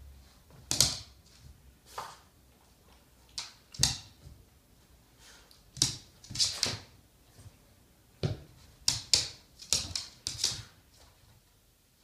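Boston Terrier's claws clicking and paws tapping on a hard floor and rug as it scrabbles and pounces, in irregular bursts of quick sharp taps, busiest in the second half.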